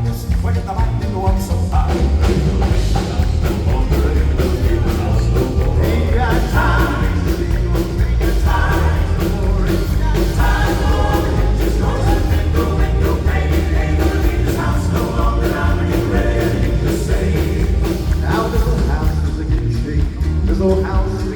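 Southern gospel vocal groups singing an up-tempo song in harmony, with a live band keeping a steady beat.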